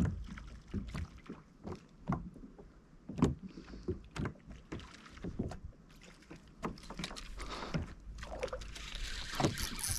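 Irregular knocks and clatter on a kayak as gear is handled aboard, over a low rumble of wind on the microphone.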